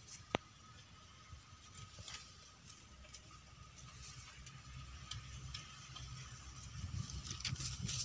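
Faint background noise with a single sharp click about a third of a second in and a thin, steady high tone throughout. Low rumbling and light rustling and ticking grow louder over the last few seconds.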